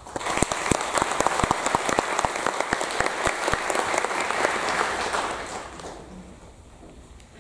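Audience applauding, starting suddenly and holding steady for about five seconds before dying away.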